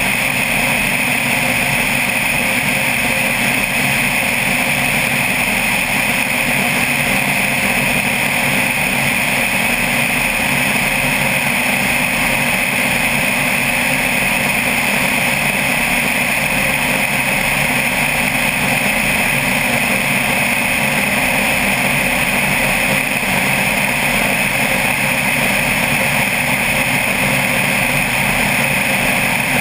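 Single-engine propeller plane in steady cruise: the engine and propeller drone on without change, mixed with rushing wind noise on the microphone.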